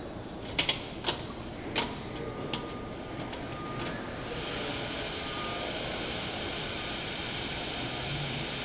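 Engine assembly line machinery and hand tools: a handful of sharp metallic clicks in the first couple of seconds, then a steady mechanical hiss with a faint thin whine from about four seconds in.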